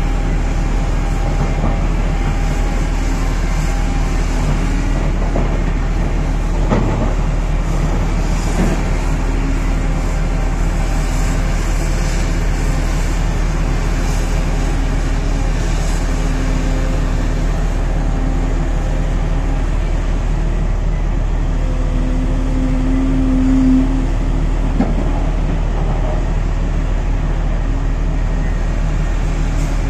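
Heavy diesel engines running steadily: a Volvo EC950E crawler excavator digging and swinging rock beside a BelAZ mining dump truck. An engine tone swells and fades as the excavator works, with a few knocks of the bucket in the rock, about seven, nine and twenty-five seconds in.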